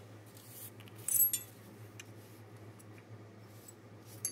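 Bolt carriers and small gun parts being slid and set down on a rubber bench mat, with a bright metallic clink about a second in and a few faint ticks after. A steady low hum runs underneath.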